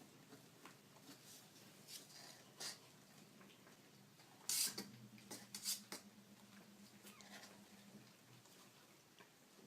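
Baby kittens making small, faint noises: soft scattered scuffling and short breathy sounds, the loudest a brief noisy burst about halfway through.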